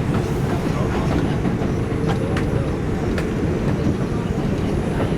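A train running, a steady low rumble with faint clicks over it.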